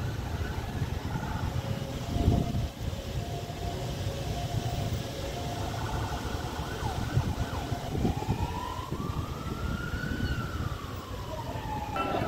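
An emergency-vehicle siren wails in a slow rise and fall over the steady rumble of road traffic. There is a brief louder thump about two seconds in.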